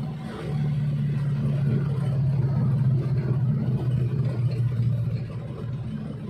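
Daihatsu Espass engine running. It picks up about half a second in, then its pitch slowly sags before it eases off near the end.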